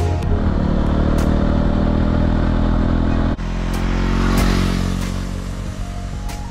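Motorbike engine running steadily while riding, heard from the bike. About three seconds in, the sound cuts to a motorbike engine heard from beside the road, swelling briefly and then fading.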